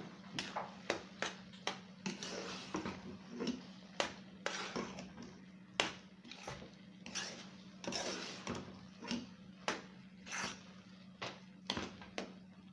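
Metal spoon stirring thick, oily cooked beans in a pot, scraping and knocking against the pot in quick, irregular strokes. A steady low hum runs underneath.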